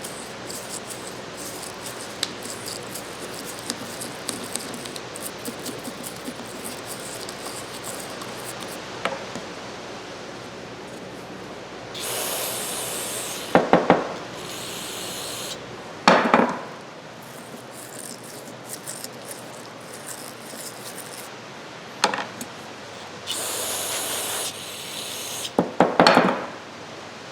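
A toothbrush scrubbing the greasy parts of a Craftsman 3/8 drive ratchet, a steady scratchy rubbing with small ticks. Twice, about halfway and again near the end, comes a hiss of aerosol carburetor cleaner sprayed for a second or so. Several sharp knocks fall among the sprays.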